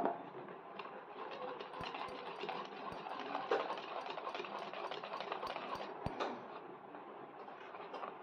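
Wire whisk mixing flour and cocoa into cake batter in a bowl: a quick, even run of scraping and tapping strokes against the bowl, easing off about six seconds in.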